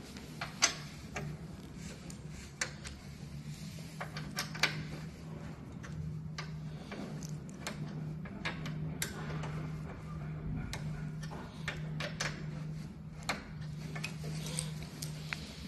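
Metal Allen keys clinking and plastic parts clicking while a bracket is fitted to a treadmill's rear end cap: irregular sharp clicks and clinks over a low steady hum.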